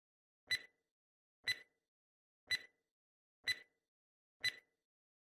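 Quiz countdown-timer sound effect ticking once a second, five short sharp ticks with dead silence between them.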